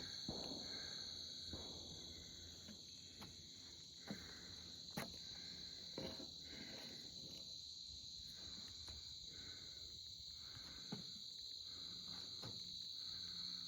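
Steady, unbroken high-pitched chorus of crickets and other insects, with a few scattered soft knocks of footsteps on the trail.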